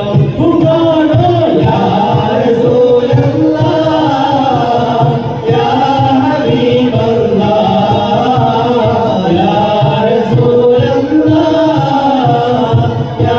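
A group of men singing an Islamic devotional song together in unison, sung into microphones, with no instruments, the melody carried in long wavering phrases with brief breaths between them.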